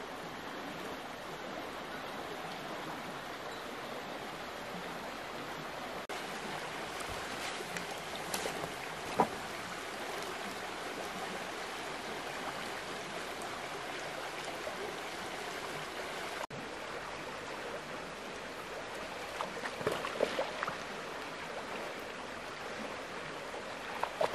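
Flowing river water rushing steadily, with a few brief knocks from handling gear at the bank, the sharpest about nine seconds in.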